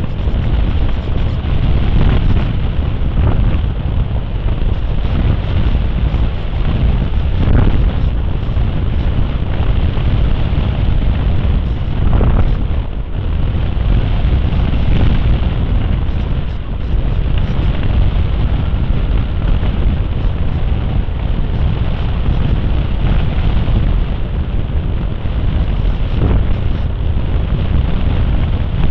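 Wind rushing over the microphone of an FPV camera on a model plane in flight, a loud steady rumble with a few brief swells, mixed with the plane's propeller noise.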